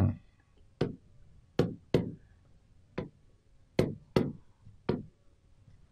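A stylus tapping and knocking against a large touchscreen display while handwriting an equation: about seven short, sharp taps at uneven intervals.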